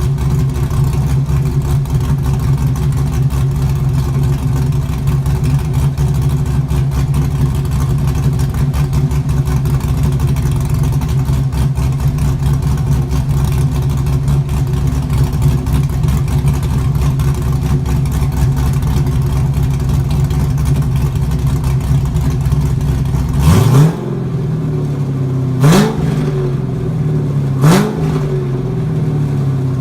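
LS1 V8 swapped into a Mazda RX-7, idling loudly through an exhaust with no rear mufflers, then three quick throttle blips about two seconds apart near the end, each rising sharply in pitch and dropping back to idle.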